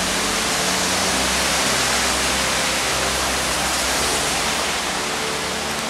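A creek in flood, with muddy floodwater rushing over rocks and spilling down a small white-water channel. It makes a loud, steady rush of water.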